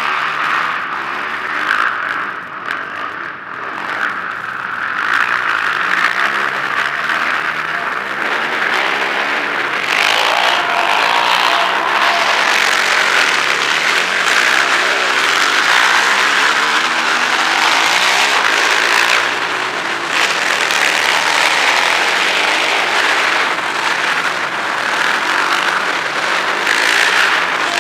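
Several racing quad (ATV) engines revving up and down as they run the track inside an arena, with their pitches rising and falling over a steady wash of noise.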